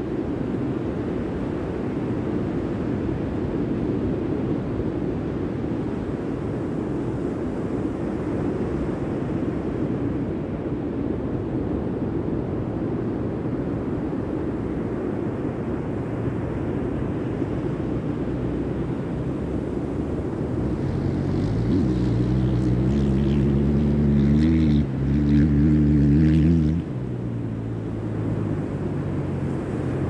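Steady low rumble of wind on the microphone and surf. About twenty seconds in, a loud, slightly wavering pitched drone builds for about six seconds and then cuts off suddenly.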